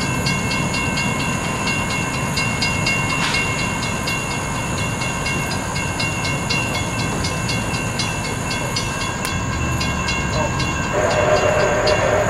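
Railroad grade crossing bell ringing in steady, evenly spaced strikes over the low rumble of an approaching train. About eleven seconds in, the locomotive's horn sounds briefly.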